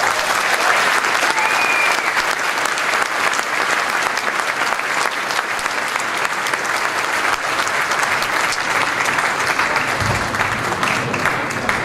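Audience applauding steadily, with a short whistle about a second and a half in.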